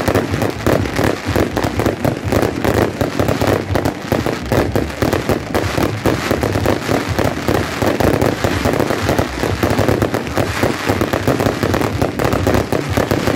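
Fireworks display with many aerial fireworks bursting at once: a dense, unbroken barrage of rapid bangs and crackles that never lets up.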